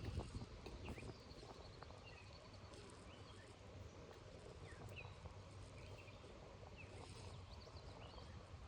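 Faint outdoor ambience by a pond, with scattered short, high bird chirps over a quiet low background hum.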